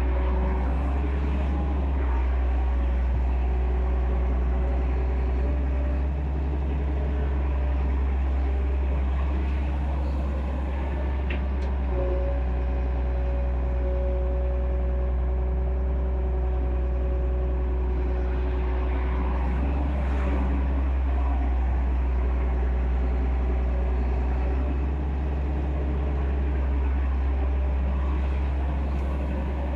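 Excavator's diesel engine running steadily under load, a deep rumble with a higher steady tone that fades in and out several times.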